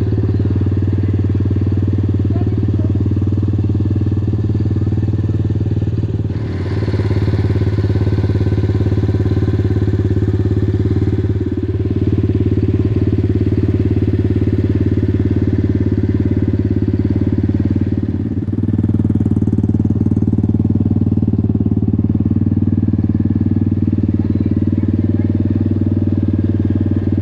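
Apollo RFZ X18 125cc pit bike's single-cylinder four-stroke engine idling steadily.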